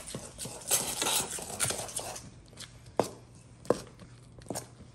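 Fork beating eggs into flour in a stainless steel mixing bowl: quick scraping strokes for about two seconds, then a few sharp metal clinks.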